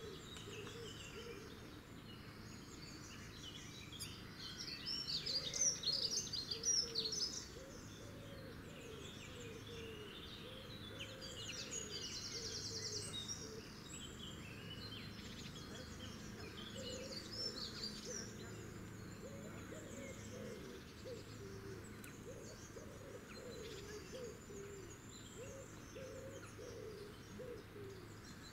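Wild birdsong: several songbirds chirping and trilling, busiest and loudest between about four and seven seconds in, over a lower bird call that repeats all through.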